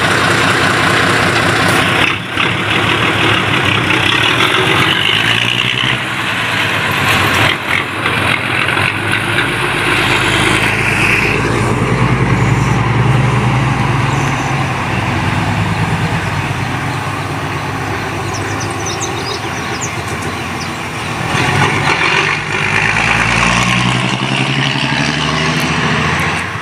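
Alfa Romeo FNM truck's diesel engine running loudly, its note shifting as it goes, heavier and lower in the middle stretch and brighter again near the end.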